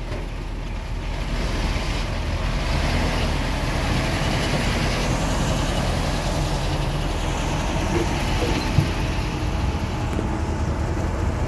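Heavy diesel engines of a dump truck and excavator running with a steady low rumble, with one short sharp knock just under nine seconds in.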